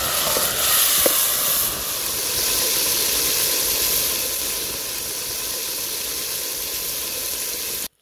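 Onions, tomatoes and green chillies sizzling steadily as they fry in hot oil in a steel pot over a wood fire, with a ladle stirring. The sizzle cuts off abruptly near the end.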